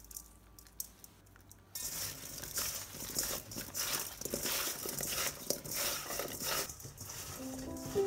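Raw potato wedges tossed and turned by hand in a stainless steel mixing bowl, a rustling shuffle with small knocks against the bowl that starts about two seconds in. Before that, only faint ticks of seasoning sprinkled over the potatoes; soft music comes in near the end.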